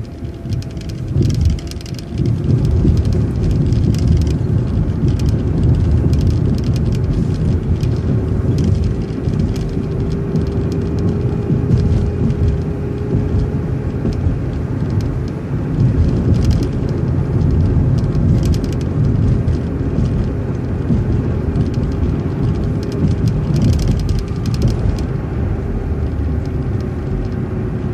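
Road vehicle driving along at speed: a steady low rumble of engine and tyres, growing louder about two seconds in, with a steady whine that rises slightly and sinks back near the end.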